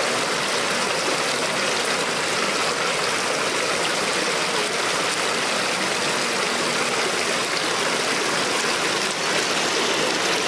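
Steady rushing of running water, an even hiss without breaks.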